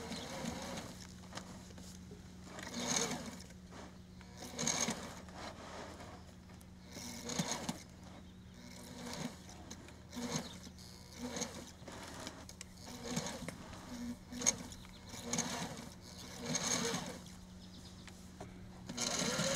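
Sailrite Ultrafeed LS-1 straight-stitch walking-foot sewing machine stitching slowly in short stop-start bursts, roughly one every second or two, as binding is fed around a rounded corner of thick floor covering. A steady low hum runs underneath.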